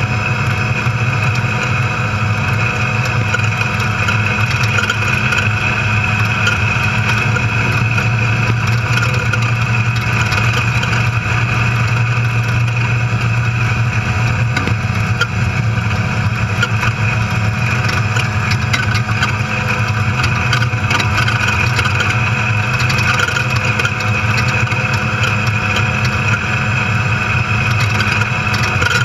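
Off-road desert race car's engine running steadily at speed, heard from inside the cab as a constant drone, mixed with road noise and short knocks and rattles from the rough dirt track.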